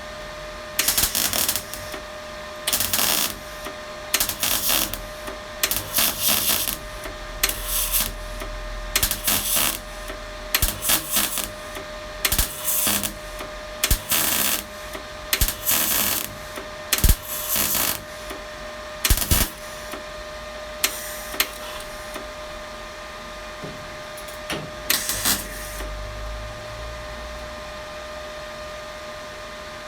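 Welder tacking and stitch-welding the steel body of a classic Mini: a run of short crackling bursts, each a second or less, about seventeen of them over the first twenty-six seconds, over a steady hum.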